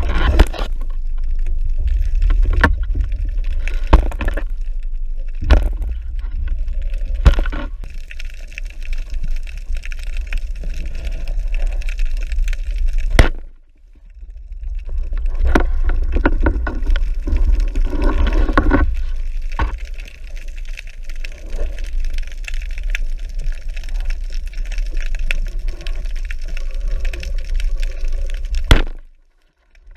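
Water rushing and gurgling against a submerged camera, with a heavy low rumble and several sharp knocks. It cuts out briefly twice, about halfway and near the end.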